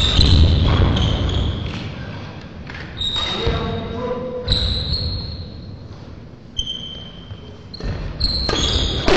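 Badminton rally in an echoing sports hall: several high squeaks from shoes on the court floor, with footfalls and a few sharp racket strikes on the shuttlecock.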